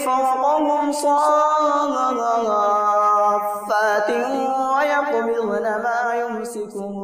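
Outro music: a voice singing long, gliding held notes in a chant-like melody over a steady low drone, growing quieter near the end.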